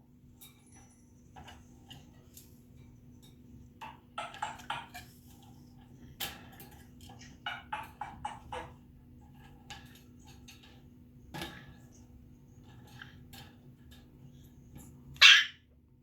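African grey parrot calling in short notes and squawks: quick runs of notes about four seconds in and again around eight seconds in, scattered clicks between, and one loud squawk near the end.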